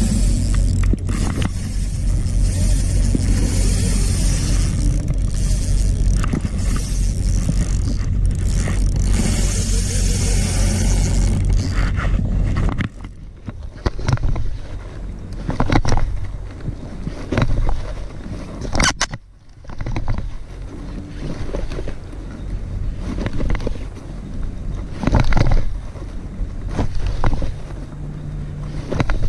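Low wind rumble on the action camera's microphone as the kayak moves, cutting off suddenly about 13 seconds in. After that, hands handle the camera and its mount right at the microphone, making scattered scrapes and rubbing knocks.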